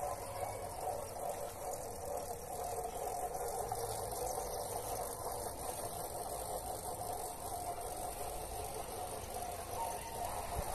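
Steady outdoor background noise: a low hum and rumble with hiss above it, with no distinct events.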